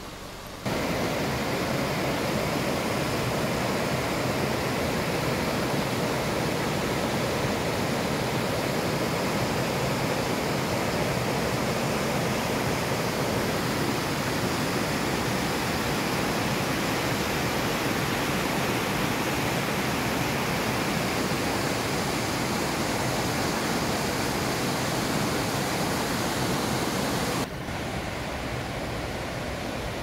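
Roadside waterfall: a steady, even rush of falling water. It starts abruptly about half a second in and drops to a lower level a few seconds before the end.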